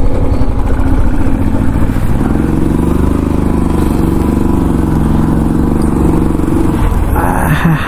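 Motorcycle engine running as the bike rolls slowly onto paving. About two seconds in it settles into a steady idle. A burst of rushing noise joins near the end.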